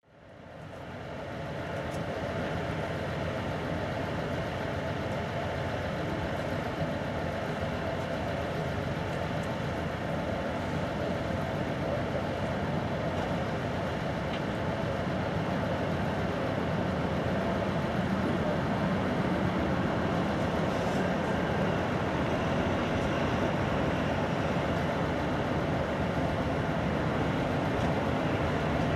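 Airbus A300-600 airliner's jet engines on final approach, a steady jet noise with a faint whine, fading in at the start and growing a little louder and deeper as the plane nears touchdown.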